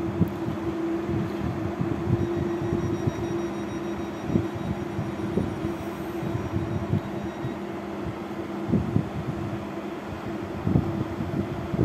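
Trenitalia BTR 813 (Stadler FLIRT) multiple unit standing at the platform, its onboard equipment humming steadily, with irregular low thumps through the hum.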